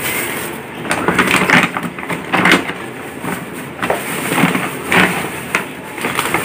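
Thin clear plastic bag crinkling and rustling in irregular bursts as it is handled.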